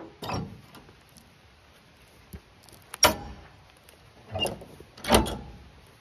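Steel logging chain with hooks clanking and rattling as it is handled on a loaded log trailer: four separate clanks a second or more apart.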